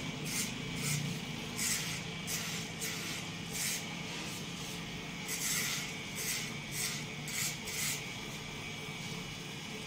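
Electric hair trimmer running with a steady hum, its blade cutting through the boy's hair in repeated short strokes, each stroke giving a brief crisp hiss, about ten in all at an uneven pace.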